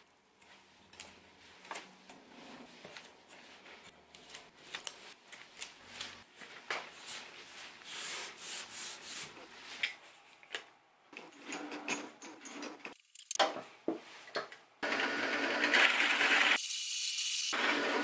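Light rustling and clicks of masking tape and tools being handled, then, about 15 seconds in, a bench drill press starts up and bores a 30 mm hole into wood, a loud steady running and cutting sound.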